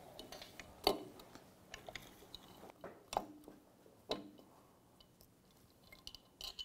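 Light metal clicks and knocks as a 2005 Honda CRF450R's cylinder is eased down over the piston rings with the cam chain held up through it. A few sharper knocks come about one, three and four seconds in, among fainter ticks.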